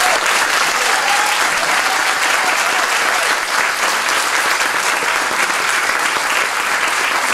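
Audience applauding: steady, dense clapping from a lecture-hall crowd.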